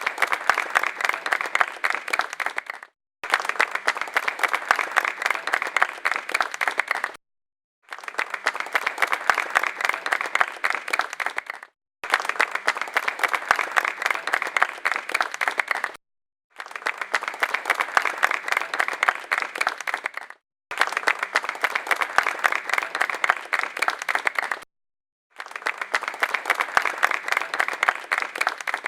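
Crowd applause, many hands clapping densely, in blocks of about four seconds that each cut off abruptly into a brief silence before the next starts, seven times over: a short applause clip repeated on a loop.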